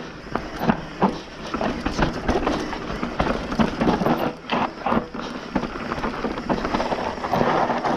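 Bird Zero AM hardtail mountain bike riding down a dry, dusty trail: tyres rolling over dirt with many irregular clattering knocks from the bike. The tyre noise rushes louder near the end.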